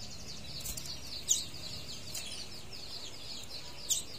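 Red canary singing: a fast, continuous twittering trill of short falling notes, with two sharper, louder chirps, one about a second in and one near the end.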